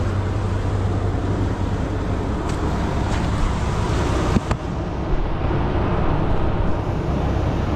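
A vehicle engine idling steadily as a low hum, with one sharp knock about four and a half seconds in.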